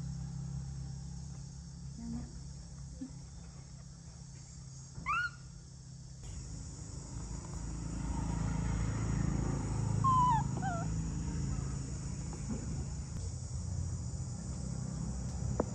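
A few short, high animal calls over a steady low hum: one rising squeal about five seconds in, then a couple of quick falling chirps about ten seconds in.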